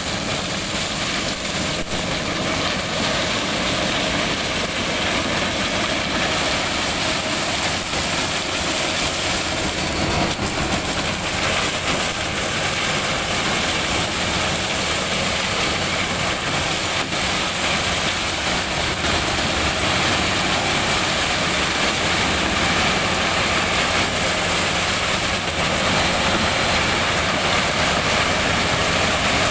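Tractor engine running steadily under load while ploughing a field.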